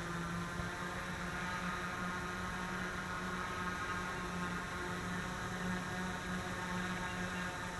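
Aton quadcopter hovering, its propellers and motors giving a steady whirring hum that wavers slightly in pitch as the motors make small corrections to hold position.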